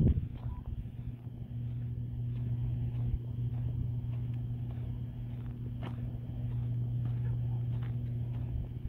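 Steady low electrical buzzing from a substation and its power lines, with occasional footsteps on dirt.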